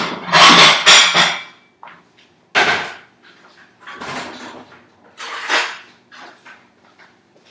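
Kitchen handling noises: a loud scraping clatter in the first second and a half, then a few separate knocks of dishes and utensils being moved about, the last ones fainter.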